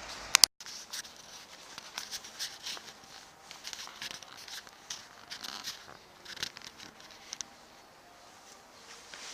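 Irregular rustling and scratchy clicking, close to the microphone, after two sharp clicks and a brief moment where the sound cuts out completely about half a second in.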